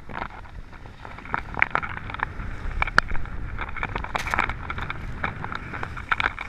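Skis scraping and carving on hard-packed snow through a series of turns, in short repeated rasps, with wind rushing over the microphone underneath.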